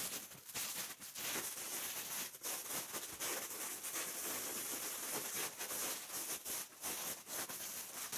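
Plastic stretch wrap crinkling and crackling as it is peeled and torn off a wrapped package, a steady run of small crackles.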